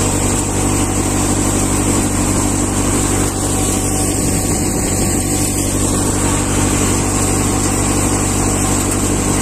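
Multicrop thresher running steadily: a continuous, even machine drone with a constant low hum and no change in speed.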